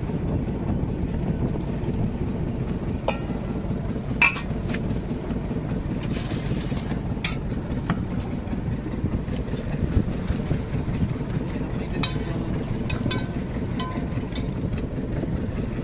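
Steady low rumble of a fishing boat's engine running, with a few sharp clinks of steel pots and bowls.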